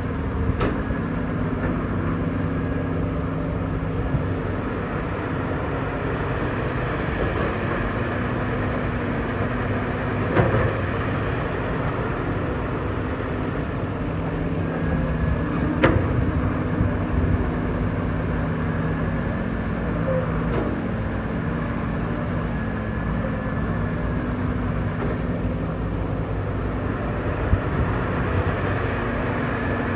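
Heavy diesel machinery engines running steadily, their pitch dipping and rising slightly as they work, with a few sharp metallic clanks scattered through.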